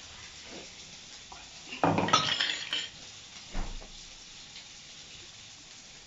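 Metal kitchen utensils and dishes clattering and scraping for about a second, then one short knock, as the freshly ground spice paste is handled for coating fish.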